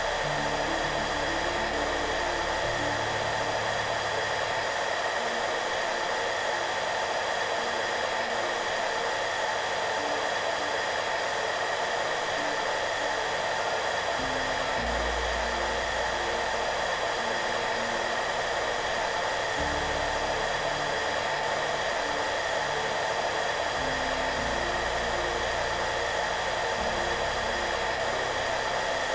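Hair dryer running steadily without change. Soft background music plays underneath as slow, low notes that change every few seconds.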